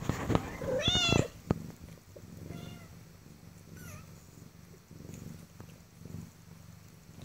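Young Bengal kittens mewing: one loud mew that rises and falls about a second in, then fainter mews around the middle, over a low steady purr. A few soft knocks right at the start.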